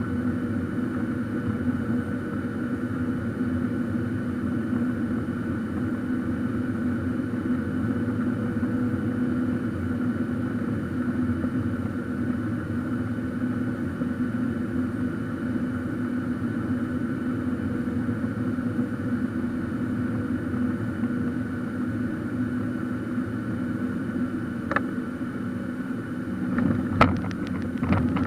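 Steady cabin noise of a Boeing 737-800 with its CFM56 engines running: an even hum with a few steady tones, heard from a window seat. A few sharp clicks come near the end.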